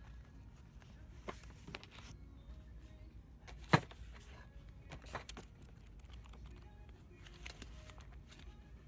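Store ambience: a steady low hum with scattered light clicks and knocks, and one sharp knock a little under four seconds in.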